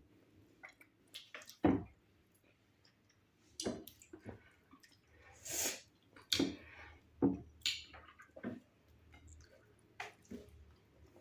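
Eating sounds of fufu with slimy ogbono soup: scattered short wet smacks and squishes from mouths and fingers, with a few sharper clicks.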